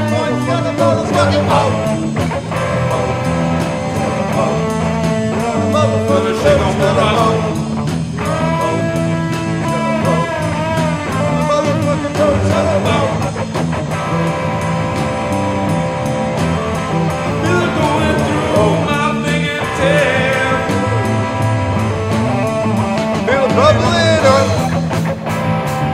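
A recorded rock song playing: a full band led by electric guitar, without words that the transcript picks up.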